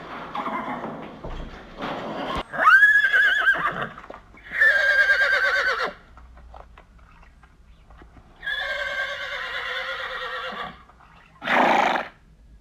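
Horses whinnying: three separate wavering calls of one to two seconds each, the first rising sharply at its start, then a short call near the end.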